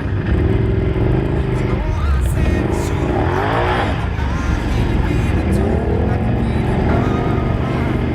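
ATV engines running, with the pitch rising and falling as they are revved, the largest rev about three to four seconds in. Music plays underneath.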